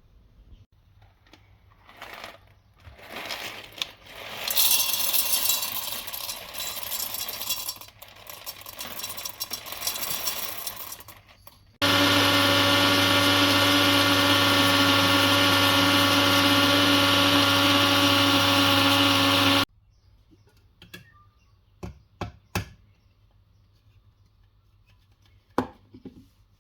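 A small electric coffee appliance's motor or pump runs steadily with a loud, even buzz for about eight seconds, then stops abruptly. Before it come several seconds of irregular rattling and clattering, and after it a few sharp clicks and knocks.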